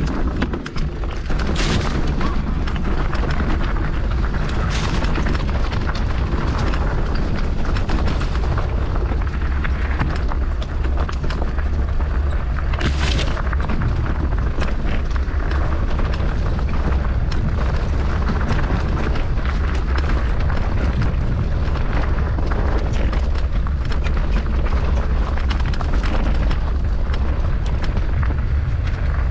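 Mountain bike riding down a rough trail: a steady, loud rumble of wind buffeting the microphone and tyres rattling over the ground, with a few brief hissing bursts.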